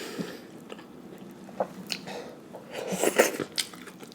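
Close-miked chewing and lip smacking on a fried chicken sandwich, with scattered soft mouth clicks and a denser run of louder wet clicks about three seconds in.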